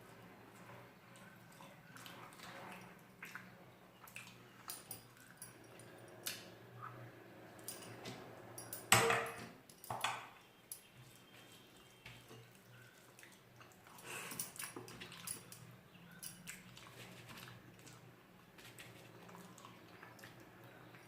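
Close-up eating sounds of rice with curry: scattered small wet clicks of chewing and food being handled. There are two louder sharp knocks or clinks about nine seconds in and about a second later.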